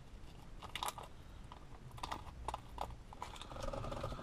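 Scattered light clicks and taps of small steering-wheel hub parts and screws being handled, a few irregular ticks spread over a few seconds.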